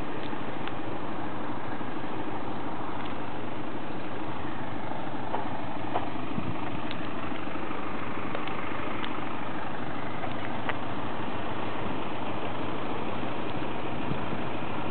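An engine idling steadily at an even level, with a few faint ticks over it.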